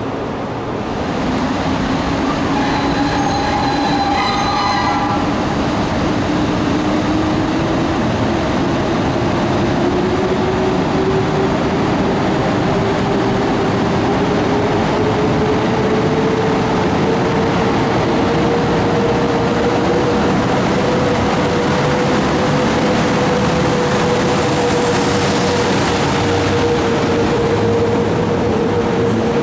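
EP09 electric locomotive hauling a passenger train, with a steady whine that climbs slowly in pitch as the train gathers speed. A short high squeal sounds a few seconds in.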